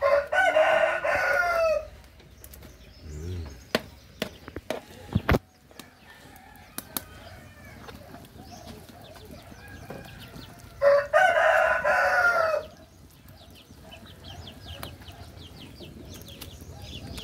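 A rooster crowing twice, each crow about two seconds long, the first at the start and the second about eleven seconds in. Between them come a few sharp knocks of the spatula in the cooking pan.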